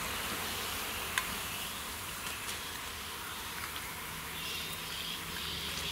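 Battered elephant foot yam bajjis deep-frying in hot oil in a kadai: a steady sizzling hiss, with a single light click about a second in.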